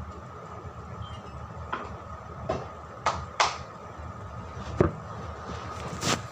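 Kitchen clatter: about six sharp clinks and knocks, like metal or crockery being handled, over a steady hum with a faint constant tone.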